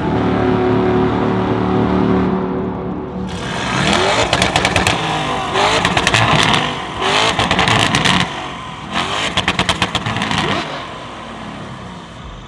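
Tuned sports car engine revved hard: a rising rev held steady for about two seconds, then four short rev blips, each breaking into a rapid crackle, before it dies away near the end.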